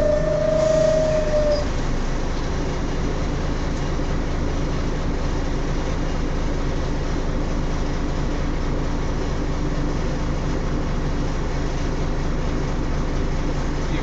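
Volvo Olympian double-decker bus's diesel engine idling at a standstill, a steady low rumble heard inside the upper deck. A steady whine stops about a second and a half in.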